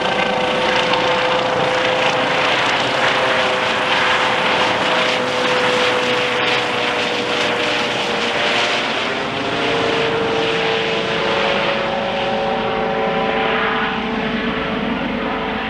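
Airbus EC135 twin-turbine medical helicopter taking off and climbing away overhead: steady turbine whine over loud rotor noise, the whine's pitch shifting about ten seconds in as the helicopter passes over and heads off.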